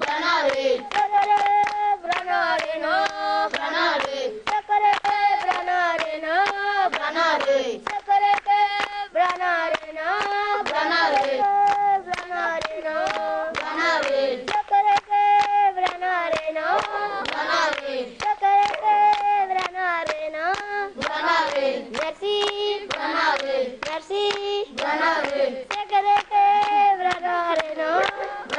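Children's voices singing a repeating melodic chant, accompanied by rhythmic hand clapping.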